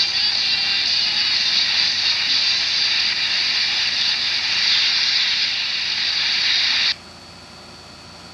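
Steady hiss-like noise from a television speaker that cuts off suddenly about seven seconds in, leaving only a faint high whine.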